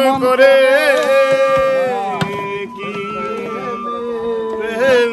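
Man singing a Bengali folk song in long, wavering, ornamented held notes over a steady backing drone.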